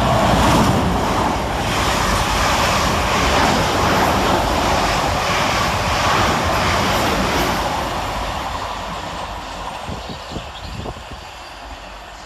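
Two coupled Class 444 Desiro electric multiple units passing through the station non-stop: a loud rushing of wheels and air that fades away over the last four seconds or so.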